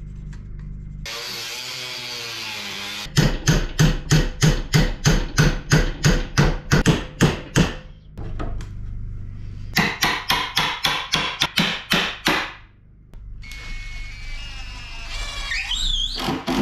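Hammer blows on an aluminium angle bracket clamped in a steel bench vise, about three strikes a second in two runs, bending it into a hook. Near the end a cordless drill-driver whines.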